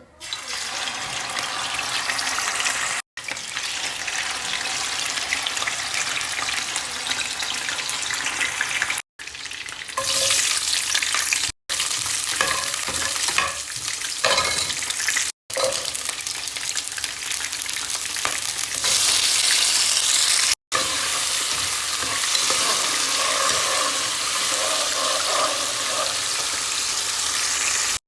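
Food frying and sizzling in a hot pan while it is stirred. The steady sizzle breaks off for an instant five times.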